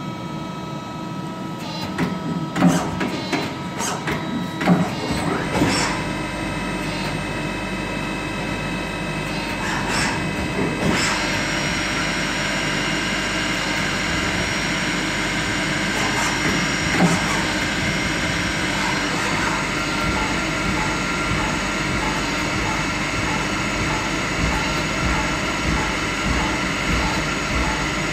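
INDEX ABC CNC lathe running: a cluster of sharp clunks and knocks in the first few seconds as its slides and turret move, then a steady machine whir with several constant tones. A hiss of coolant spray joins and grows louder about ten seconds in, with an odd knock now and then.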